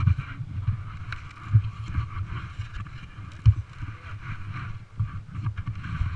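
Ghost ASX 4900 mountain bike ridden fast over a bumpy dirt and gravel track, heard from a helmet camera: wind buffeting the microphone as a steady rumble, with tyre hiss and irregular knocks and rattles from the bumps, two of them sharper and louder.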